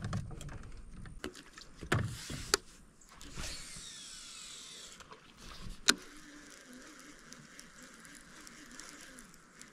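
A fishing rod cast and its reel wound in: a whirring that falls in pitch, a sharp click, then quiet, steady reeling.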